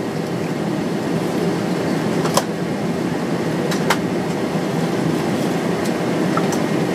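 Steady drone inside a parked airliner's cabin, with two faint clicks about two and a half and four seconds in.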